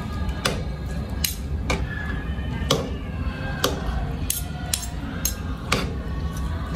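Metal spoon and fork clinking and scraping against a ceramic plate while mixing rice and toppings, with a sharp clink roughly every half second to second.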